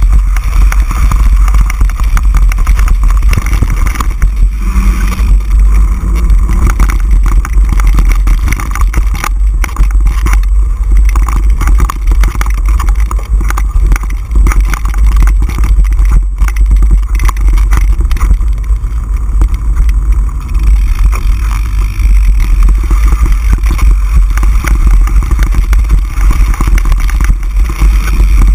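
Mountain bike ride on a rough dirt trail, heard from a bike-mounted camera: constant heavy wind rumble on the microphone, with continuous rattling and knocking from the bike over the bumpy ground.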